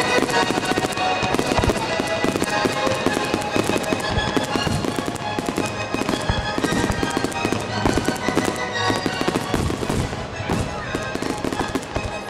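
Fireworks going off in a dense, rapid run of bangs and crackles, many per second without a break, with music playing underneath.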